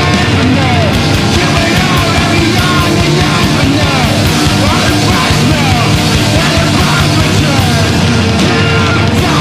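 Loud, dense screamo and noise rock recording playing continuously, with short sliding pitches running through it.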